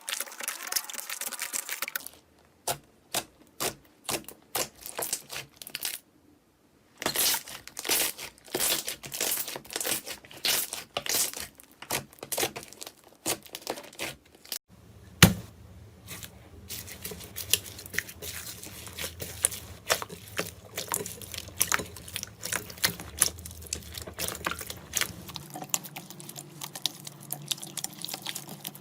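Slime being squished, poked and stretched by hand, making quick irregular crackles, clicks and pops over several short clips, with one sharp, loud pop about 15 seconds in.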